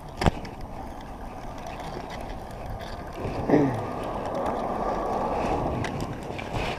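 Spinning fishing reel being cranked to bring in a small catfish, a steady whirring noise that builds through the second half. A sharp click comes near the start.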